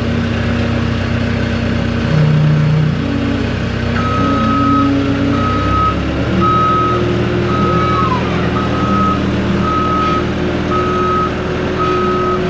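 Skid steer engine running, its pitch rising about halfway through, with its reversing alarm beeping about once a second from about four seconds in as the machine backs up.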